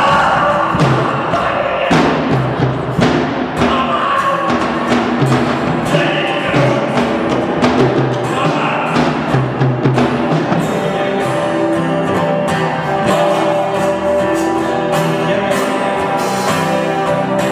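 Live band music played on stage: an acoustic guitar with a drum kit, and a man singing over the first part. The singing drops out about two-thirds of the way through, leaving guitar and drums.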